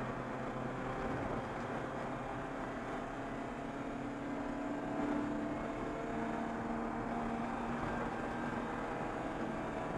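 Race car engine running under acceleration, heard from inside the stripped, roll-caged cockpit over road and wind noise. Its pitch climbs slowly, drops about five to six seconds in, then climbs again, as at a gear change.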